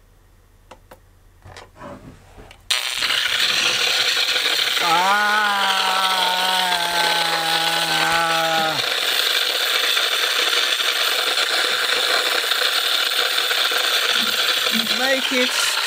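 A cheap LCD digital picture frame's built-in speakers blasting very loud, harsh noise as it plays an XviD movie whose audio it decodes wrongly. The noise starts abruptly about three seconds in, after a few faint clicks, and a pitched drone sounds through it for a few seconds in the middle.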